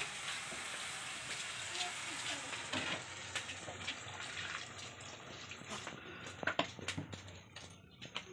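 Okra and potato curry sizzling in a pan as water is poured in from a mug; the hiss dies down after about five seconds, then a spatula clinks and scrapes against the pan several times as the curry is stirred.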